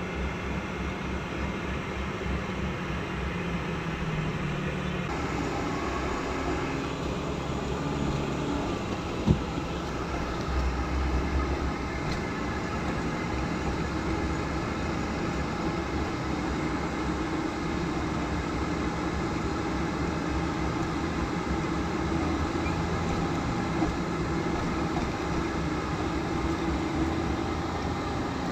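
A vehicle running steadily, with a continuous engine hum and road noise, and a single sharp knock about nine seconds in.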